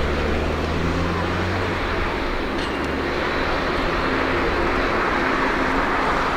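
Boeing 787-8's GEnx-1B jet engines running at taxi power, a steady jet hum that grows slightly toward the end. A deeper low hum underneath fades out about two seconds in.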